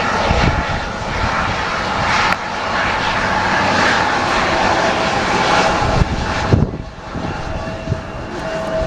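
Airplane engine noise, loud and steady, then falling away sharply about two-thirds of the way through, with wind buffeting the microphone.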